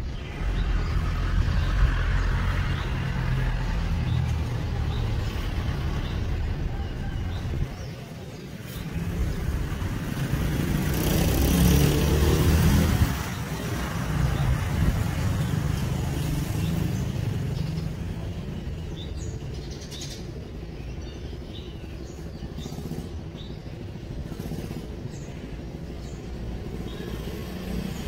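Road traffic going by, motorbikes and cars, as a steady low rumble that swells to its loudest about ten to thirteen seconds in as a vehicle passes close. Birds chirp faintly over it.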